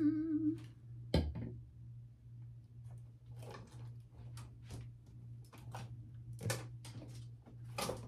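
A few hummed notes, then a sharp click about a second in, followed by light rustling and scattered small clicks of items being picked through and handled in a hanging fabric organizer, over a steady low hum.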